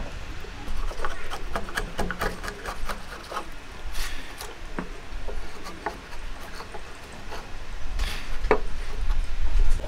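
Hand chisel paring and scraping wood: a run of short scrapes and clicks, densest in the first few seconds, then hands rubbing and brushing chips across the wooden joint.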